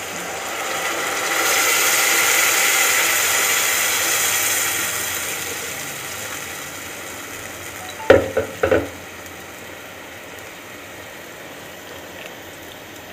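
Water poured from a jug into a hot pot of fried moong dal and spices, hissing and sizzling loudly as it hits the pan, the sizzle dying down over a few seconds. About eight seconds in, three quick knocks.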